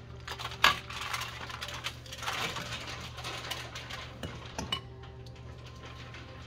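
A metal spoon clinks and scrapes in a glass bowl of oily marinade, then dabs it onto a raw red snapper lying on crinkly aluminium foil. The loudest sound is a sharp clink about half a second in, with a few lighter clinks near the end.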